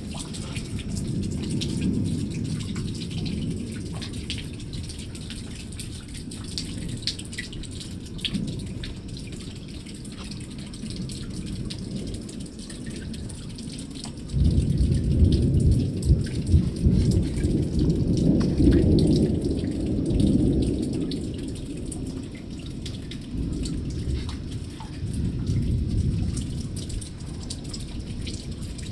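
Thunderstorm: low thunder rumbling on and off, with scattered raindrops ticking. About halfway through, a much louder rumble starts suddenly and rolls on for several seconds before easing, and smaller rumbles follow near the end.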